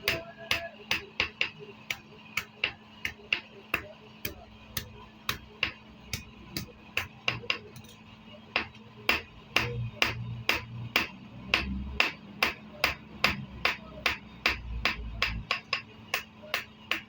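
Blacksmith's hammer striking metal on an anvil in a steady rhythm, about two to three blows a second, each blow ringing briefly.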